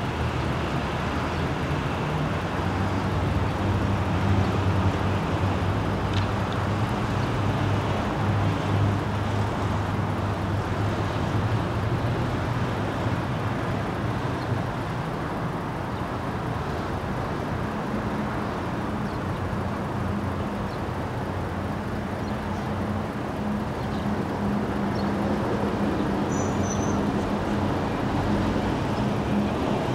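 Steady road traffic noise, with the low hum of vehicle engines running.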